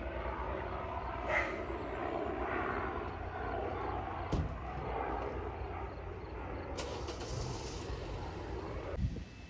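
Aircraft flying overhead: a steady engine drone with a sharp click about four seconds in. The drone drops away abruptly near the end.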